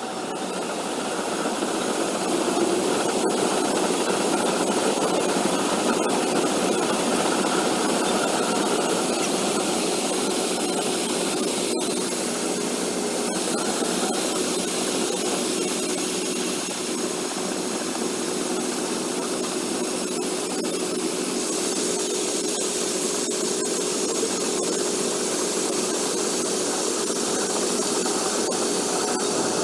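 Grain-bin machinery running steadily as a wagon of shelled corn is unloaded: a loud, even rushing noise, joined by a steady hum about halfway through.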